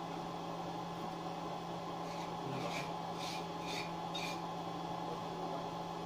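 A run of about five short scraping or rubbing strokes, roughly two a second, over a steady low hum.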